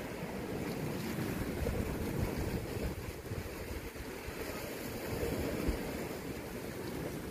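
Wind gusting across the microphone over the wash of sea waves on shore rocks.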